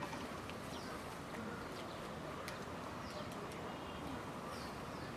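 A few short, falling bird chirps over a steady hum of outdoor background noise.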